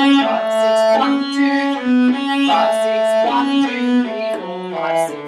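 Cello played with the bow: a lively phrase of short notes in a six-eight lilt, the same figure repeating about every second, settling onto a lower held note near the end.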